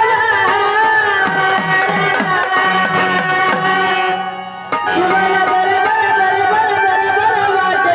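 Instrumental music: hand-drum strokes with falling bass glides over sustained held notes from a melodic instrument. The music dips briefly just past the middle, then a sharp drum stroke brings it back in.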